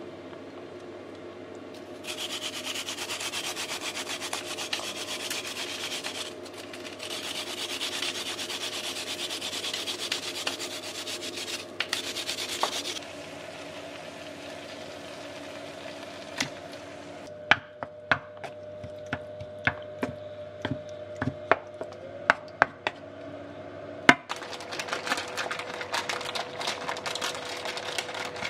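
Lotus root being rubbed on a plastic grater over a stainless steel bowl: a rasping scrape in two long runs, broken briefly about six seconds in. Later comes a string of sharp knocks, then softer scraping noise near the end.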